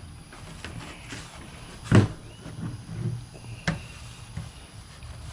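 A sharp knock about two seconds in and a second, lighter knock near the end, with soft thumps and rustling between: objects being handled and bumped while a dashboard is being worked on.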